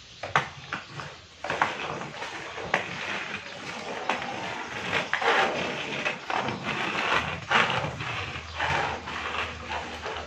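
Plastic wheels of children's inline skates rolling and scraping on rough concrete, with frequent sharp clacks as the skates strike down.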